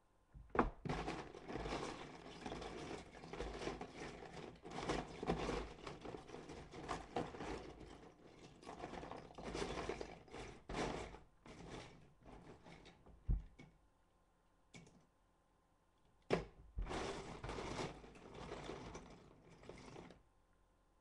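Loose Lego bricks clattering and rattling as someone rummages through them for a piece. There is a long stretch, then a few sharp knocks in a quieter gap, then a shorter stretch.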